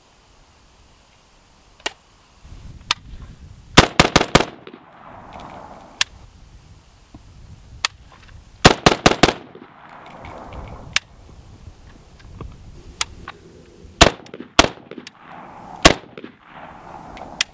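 Semi-automatic AK-pattern rifle in 7.62×39mm fired in rapid strings of about five shots each, with single shots and pairs between. Each string is followed by a short rolling echo.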